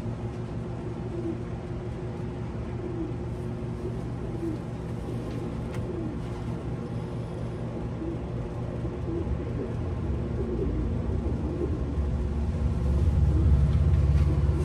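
Steady low machine hum that swells into a louder low rumble over the last few seconds, with faint pigeon cooing every second or so.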